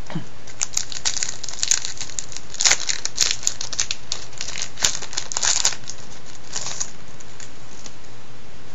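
Plastic wrapper of a 2002 Topps Total baseball card pack being torn open and handled, crinkling in quick irregular crackles that stop about seven seconds in.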